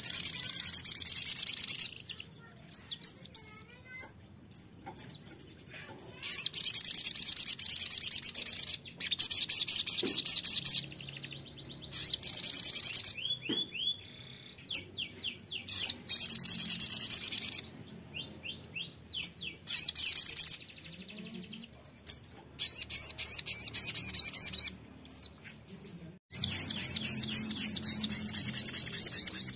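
A caged sunbird (kolibri sogon) singing: repeated bursts of fast, high, rattling trills, each lasting one to three seconds, broken by short pauses and a few shorter rising phrases.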